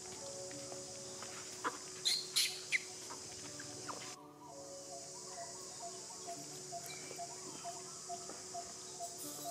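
Outdoor ambience of birds calling over a steady high insect drone. A few sharp, high calls stand out about two seconds in, and a short note repeats about three times a second in the second half. The drone drops out briefly just after four seconds.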